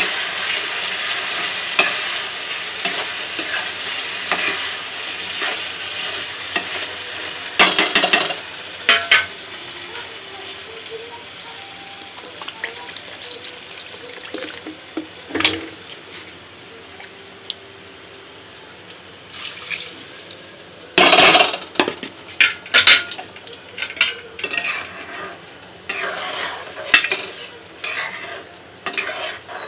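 Rice and masala sizzling in a kadai as they are stirred together with a spatula. The sizzle is strongest at first and fades over several seconds, then gives way to the spatula scraping and knocking against the pan. The knocks come loud and close together about two-thirds of the way through, with quicker clinks near the end.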